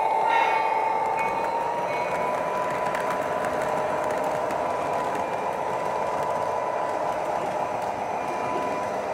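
Lionel O-gauge model trains running on the track: a steady electric motor whine over the rumble of wheels rolling on the rails. The whine rises slightly in pitch during the first couple of seconds, then holds steady.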